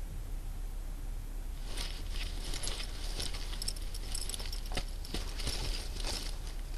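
Metal chain strap of a small handbag jingling and rattling as the bag is handled and its flap opened, in irregular small clicks starting about two seconds in.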